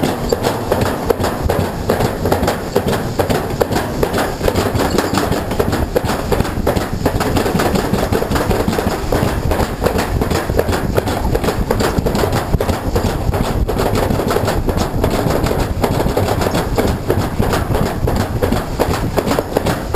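Summer toboggan sled running fast down a metal trough track: a dense, continuous rattling clatter over a steady rushing noise.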